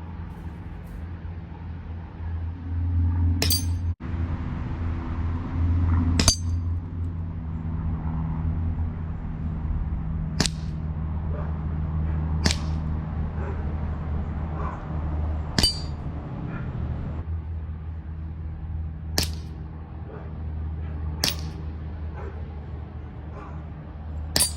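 Sig P365 CO2 BB pistol firing at Crosman metal spinning targets: about eight sharp shots a few seconds apart, each with a brief metallic ping, over a steady low hum.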